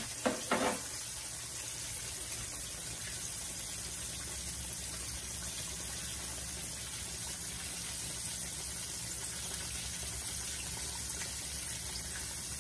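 Chicken breast frying in a pan of hot grease: a steady sizzle. Two brief pitched sounds come just after the start.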